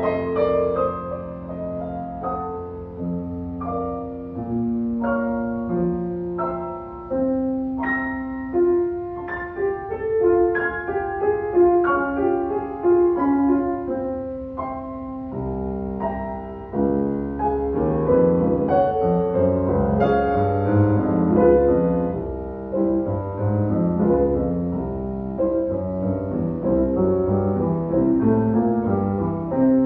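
Two grand pianos, one a C. Bechstein, played together as a piano duo. The playing is sparser at first and thickens about halfway through, with more low notes added.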